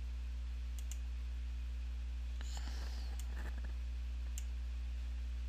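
A few computer mouse clicks: a quick double click about a second in, then single clicks later on, over a steady low electrical hum on the recording.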